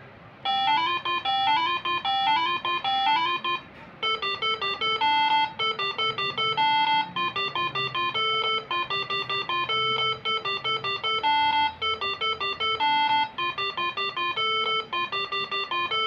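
Melody played by a Moreno Air Horn MS7 bus horn tune module (basuri style): a string of steady, bright notes that step up and down in pitch. A short phrase is followed by a brief gap about three and a half seconds in, then a longer tune.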